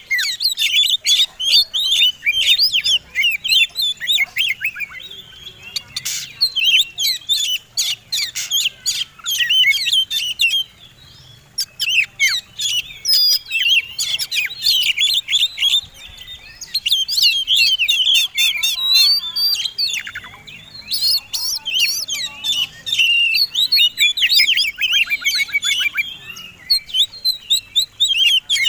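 Oriental magpie-robin (kacer) song in the style of a contest bird: a fast, varied run of whistles and chattering notes, broken by a few brief pauses.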